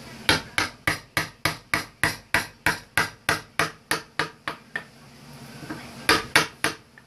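Wooden mallet striking a woodcarving chisel as it cuts into a wooden relief panel: a quick, even run of about sixteen sharp knocks, some three or four a second, then a short pause and three more knocks near the end.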